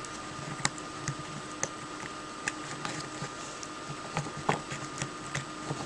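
Irregular small clicks and taps of plastic and spring steel as a coiled recoil-starter spring is pressed and hooked into a brushcutter's plastic recoil case by hand.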